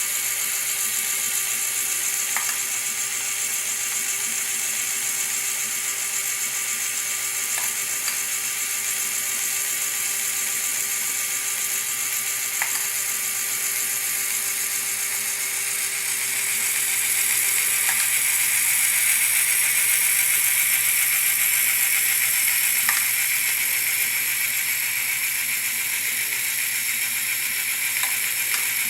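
Motorized LEGO Technic mechanism running: plastic gears and motors whirring and ratcheting steadily, with a faint click about every five seconds. It grows louder a little over halfway through.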